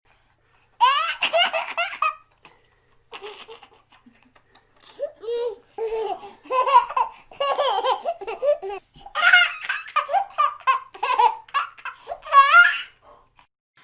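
Young children laughing and giggling in short, high-pitched bursts. It begins after a moment of silence and turns nearly continuous after about five seconds.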